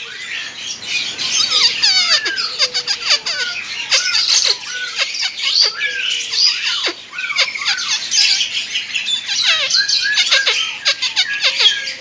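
Many caged songbirds chirping and whistling at once: a dense, unbroken high chatter with many short falling whistles.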